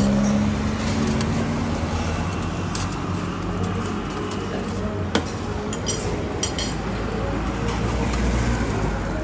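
Steady roadside traffic noise, with a vehicle passing and fading as it begins. Over it come a few light clinks of metal spoons on plates, the sharpest about five seconds in.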